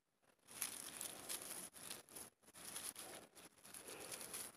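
Faint, irregular rustling and crackling of dry pine needles and leaf litter as a hand moves through it, handling a freshly pulled pine mushroom.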